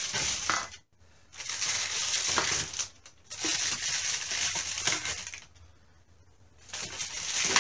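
Thin plastic shopping bag rustling and crinkling in four bursts as drink cans are lowered into it to load the hanging weight, with a couple of light knocks.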